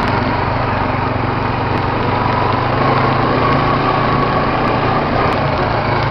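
Quad ATV's small engine running at a steady pace, even in level and pitch.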